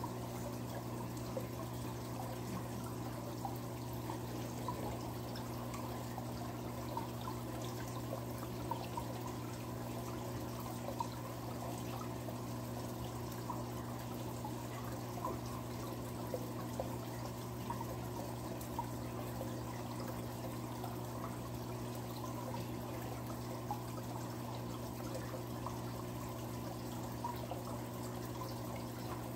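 Aquarium filtration running: water trickling and bubbling with many small ticks and pops over a steady low hum from the pump.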